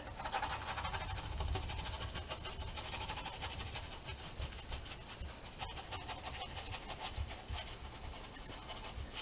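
Paintbrush scrubbing and dabbing acrylic paint onto a painting board in quick, repeated scratchy strokes, the bristles brushing the clouds into the sky.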